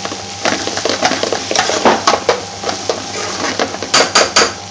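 A large metal spoon stirring and scraping frying potato strips around a metal pan, with several sharp clinks of the spoon against the pan about four seconds in.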